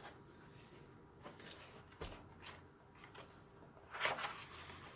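Quiet handling of a hardcover book: faint rustling, a soft thump about two seconds in, then a louder rustle of pages as the book is opened near the end.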